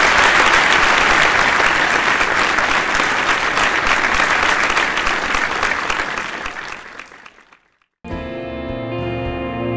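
Audience applauding, fading away over several seconds to a moment of silence; then instrumental background music starts abruptly about eight seconds in.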